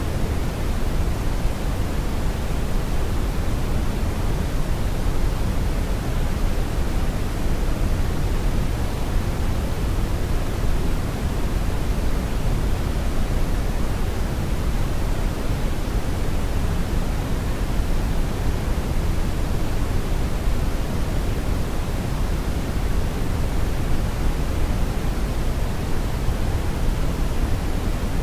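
Steady brown noise: a continuous, unchanging low rumbling hiss, heaviest in the bass and falling off toward the treble.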